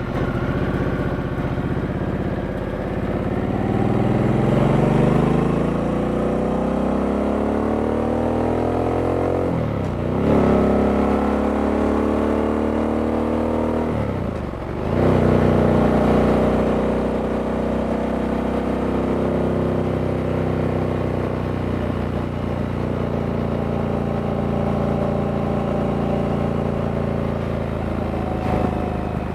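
A stock 2023 Harley-Davidson Sportster S's liquid-cooled Revolution Max 1250T V-twin pulls hard under acceleration. Its pitch climbs steadily, then drops sharply at two quick upshifts about ten and fifteen seconds in, and the engine settles into a steady cruise for the rest of the stretch.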